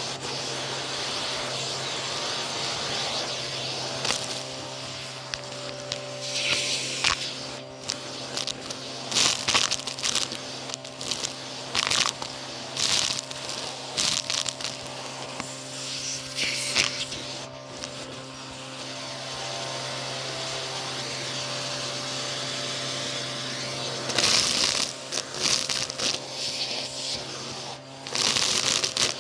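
Vacuum cleaner running steadily with a low hum, its hose tool sucking up crunchy debris such as beads, sequins and dry grit, which rattles and crackles up the tube in irregular bursts. The crackling eases off for a few seconds midway, then comes back loud near the end as the tool goes into the pile.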